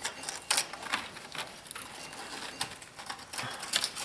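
Scattered light clicks and plastic clacks, a few irregular taps over the seconds, as a wiring harness with its retaining clip is handled and routed into place.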